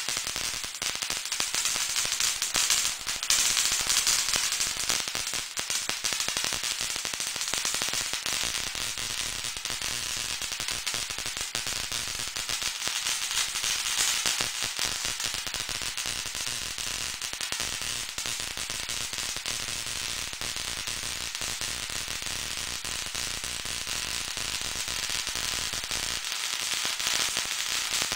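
Kinraide pancake Tesla coil running, its spark discharge crackling steadily between the two brass discharge rods, with a faint steady hum underneath.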